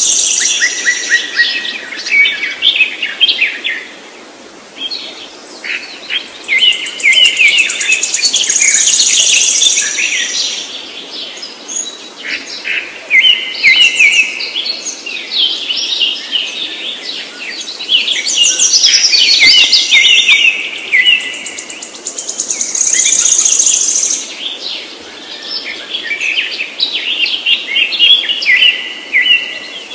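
Songbirds singing: rapid chirps and trills, with a higher trilled phrase that comes back every several seconds.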